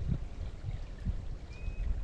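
Colorado River water flowing with a steady rushing, over an uneven low rumble. A faint, brief high chirp comes in the second half.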